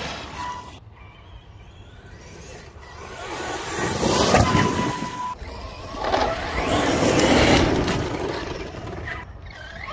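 Large-scale RC monster trucks running hard over loose dirt: motor noise and tyres throwing dirt in passes that swell and fade, loudest about four seconds in and again around seven seconds.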